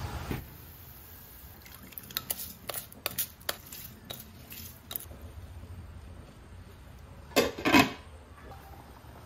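Soaked rice scraped with a wooden spoon from a glass bowl into a pot of broth, giving a run of light taps and clicks. Near the end, a glass lid is set down on the stainless steel pot with two clinks, the loudest sounds here.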